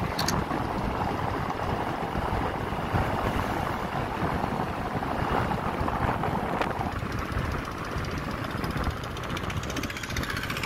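Wind buffeting the microphone of a moving vehicle, with engine and tyre noise underneath as it drives along a rough road.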